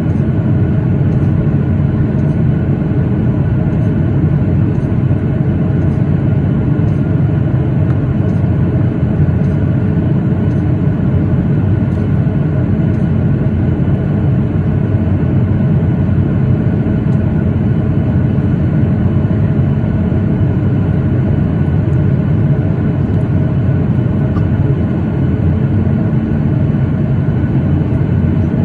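Steady roar of a Boeing 737-8's CFM LEAP-1B jet engines and rushing air, heard inside the passenger cabin, with faint steady hums over the low rumble. Near the end one low hum rises slightly in pitch.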